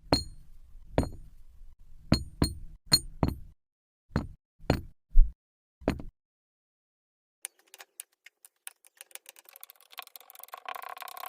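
Kinetic sand dropped and squished onto a hard surface: about ten soft knocks and thuds over the first six seconds, the loudest about five seconds in. After a short pause come faint, scattered crackles of crumbling sand.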